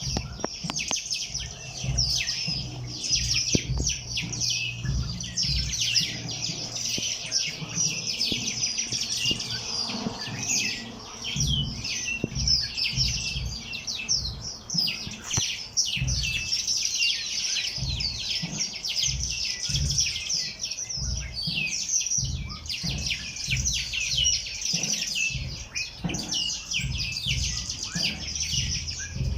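Many small birds chirping and twittering at once, a dense overlapping chorus of short, high calls with no pause. An uneven low rumble runs underneath.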